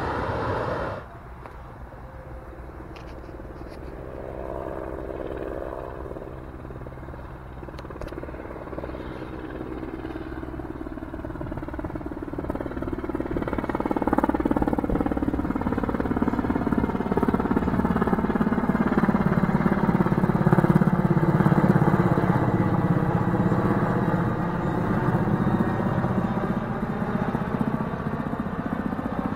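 Helicopter flying past, its engine and rotor growing steadily louder for about twenty seconds, then easing slightly as the pitch drops while it passes. The first second is the tail end of a jet airliner's engines on landing approach, cut off abruptly.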